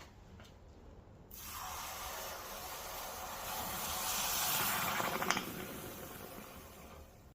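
A hiss starts suddenly about a second in, swells, then fades away, with one sharp click near its loudest point.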